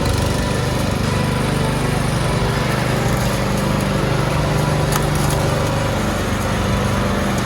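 Lawn mower's small petrol engine running steadily.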